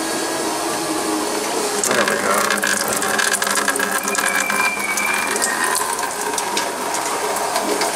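Fluid pouring in thin streams from the underside of a car into a drain bucket, splashing and trickling. From about two seconds in there are many small crackling splashes over a steady background hiss.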